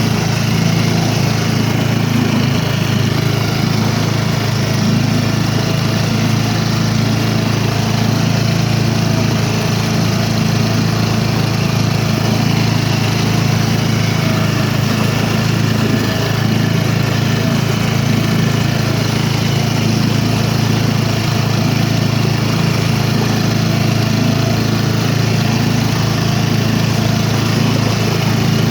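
An engine running steadily with a constant low drone that doesn't change in pitch or level.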